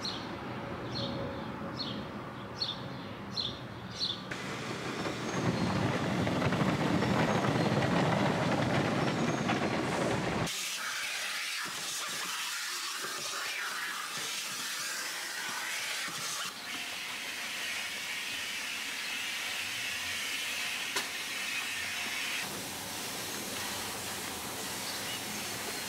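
Steady hissing spray noise from washing a car, in a run of short cuts whose sound changes abruptly at each cut. A series of short high chirps, about two a second, comes in the first few seconds.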